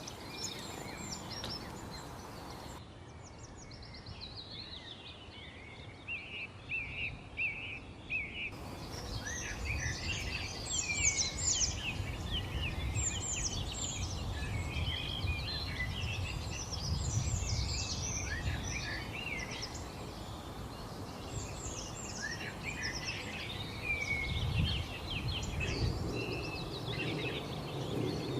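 Several wild birds singing together, a dense mix of quick chirps, whistled notes and short trills, over a low rumble.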